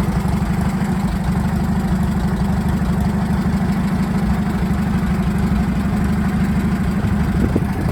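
Bristol 20 crawler bulldozer's engine running steadily at idle, with a fast, even low chugging.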